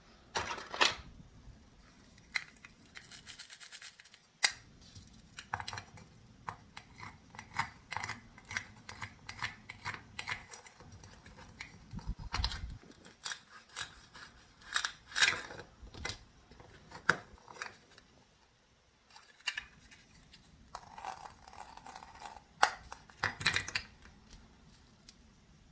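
Plastic toy melon and wooden toy knife clicking, tapping and scraping on a small wooden cutting board as the toy melon is cut into two halves and the halves are set down. The sounds come in irregular clusters of sharp taps with brief pauses.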